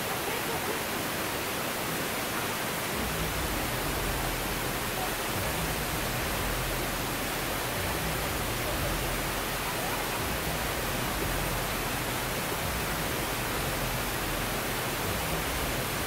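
Steady rush of a waterfall and the rocky cascade below it, an even wash of falling water. A low rumble joins about three seconds in.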